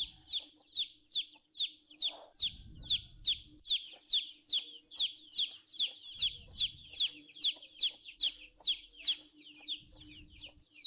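Chicks peeping: a steady run of high, short, falling peeps, about three a second, that stops shortly before the end.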